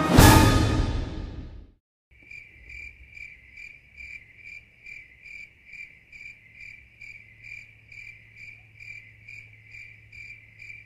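An orchestral piece ends on a loud final chord that dies away over about a second and a half. After a short silence, a cricket starts chirping steadily, about two and a half chirps a second.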